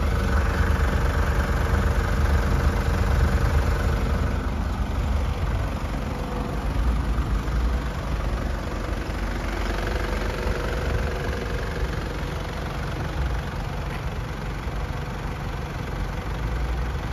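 Nissan Elgrand's 3.0-litre ZD30DD four-cylinder diesel engine idling steadily.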